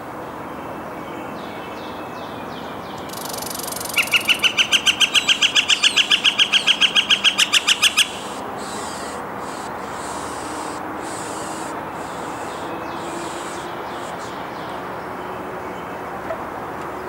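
Northern flicker giving its long call: a rapid, even run of about two dozen loud 'wik' notes, roughly six a second, lasting about four seconds and rising slightly in pitch. A steady background hiss continues throughout.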